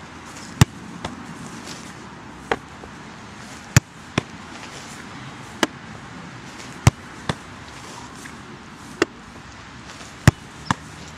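Sharp, short smacks at irregular intervals, about ten of them, one to three seconds apart and sometimes in quick pairs, over a faint steady hiss.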